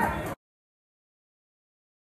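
Background chatter and music cut off abruptly a moment in, followed by dead silence.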